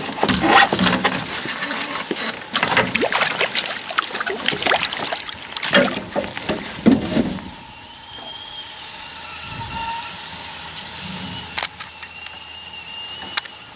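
Shallow creek water splashing and sloshing in irregular bursts as a landed Arctic grayling thrashes at the bank, dying down after about seven seconds to quieter water with a few thin, high whistled tones.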